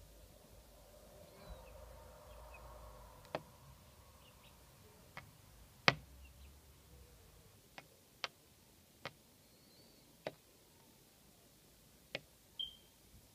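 Young chickens pecking, with sharp single beak taps every second or so and the loudest about six seconds in. A few faint high chirps are heard between the taps.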